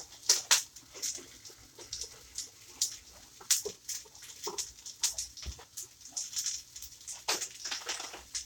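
Plastic cling wrap crinkling and rustling as food is wrapped in it: irregular sharp crinkles and clicks.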